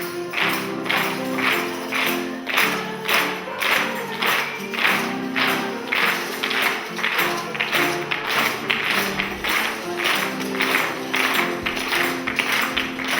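Instrumental music with a steady percussion beat, about two beats a second, over held low notes.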